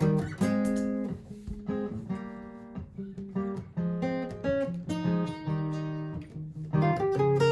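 Martin GPCPA4 acoustic guitar playing an improvised line of plucked notes and chords over a looped guitar accompaniment, several notes struck each second.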